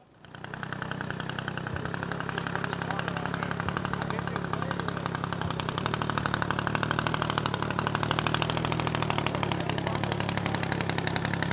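Four-cylinder Kolm engine of a large-scale RC Strega racer running steadily at low, taxiing throttle, with an even, rapid firing beat. It comes up over the first second.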